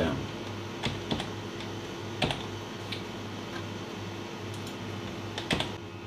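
A handful of sharp, scattered clicks from computer editing with mouse and keyboard, about six in all with a close pair near the end, over a steady low hum.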